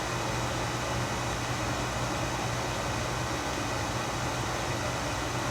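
Steady room background noise: a constant low hum under an even hiss, with no distinct events.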